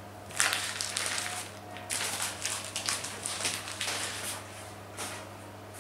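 Baking paper being peeled off and pulled away from a freshly baked chocolate génoise sponge sheet, crinkling and rustling in several short bursts.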